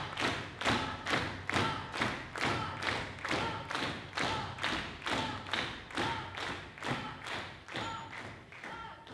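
A steady beat of sharp thumps, about two and a half a second, keeping even time and dying away over the last few seconds.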